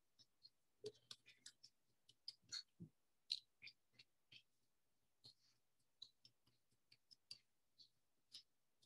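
Quiet, irregular small taps and scratchy clicks, a few a second, of paper hearts being inked on an ink pad.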